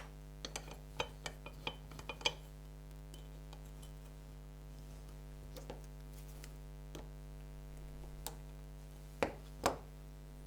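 Small hard clicks and clinks of a stuck plastic insert being worked at inside a 6-pin DIN plug shell: a quick cluster in the first couple of seconds, a few scattered ones, then two louder clicks near the end, over a steady low hum.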